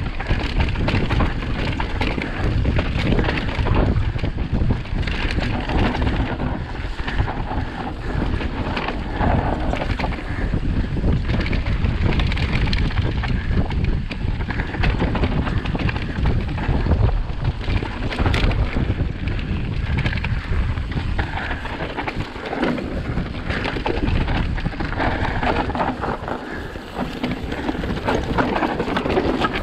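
Wind buffeting the microphone of a mountain bike descending a steep trail at speed, over a constant clatter of knocks and rattles from the tyres and bike running over rough dirt and rocks.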